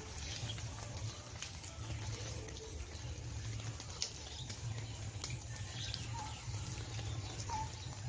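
Quiet outdoor ambience: a steady low rumble with a couple of faint, short bird chirps in the second half.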